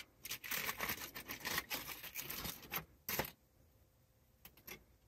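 Aluminium foil crinkling and rustling under a hand for about three seconds, with a short louder crackle just after, then two light clicks near the end.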